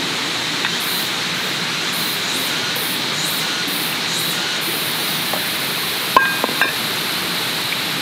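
Shallow mountain stream running steadily over rocks. A little after six seconds, a few sharp clinks as drink bottles are knocked against the stones.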